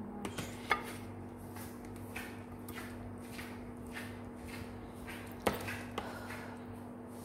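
Serving spoon scraping and tapping against a china plate as liver stew is spooned out, with soft scrapes and a couple of sharper clinks, over a steady low hum.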